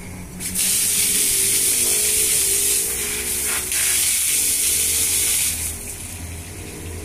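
Air and water hissing and spraying out of the valve stem of a water-ballasted 16.9-30 tractor tyre, loud for about five seconds with a brief dip in the middle. Water coming out at the valve is the sign that the tyre has taken its 75% water fill.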